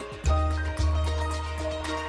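Background music: held synth tones over a heavy bass line that comes in about a quarter second in, with regular percussion hits.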